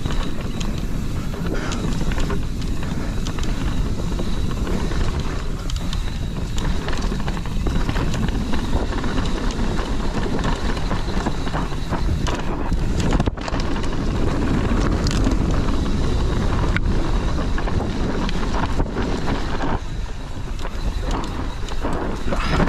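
Mountain bike descending a dirt and rock singletrack: tyres rumbling over the ground, with many short knocks and rattles from the bike over bumps and wind on the microphone.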